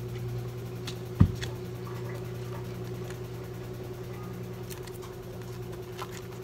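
A steady low electrical hum, with one loud thump about a second in and a few light taps as vegetables are handled on a kitchen counter and cutting board.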